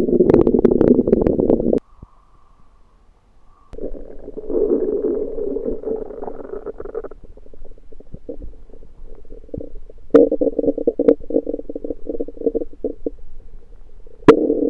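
Human stomach gurgling and rumbling in irregular bursts of low gurgles, the digestive upset the owner puts down to undercooked food. The gurgling stops for about two seconds near the start, comes back, grows louder about ten seconds in, and a sharp click comes just before the end.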